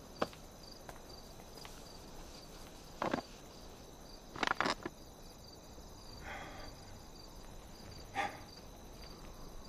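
Crickets chirping in a steady rhythm under a night ambience, with a few soft knocks and shuffles of people sitting down at a wooden table.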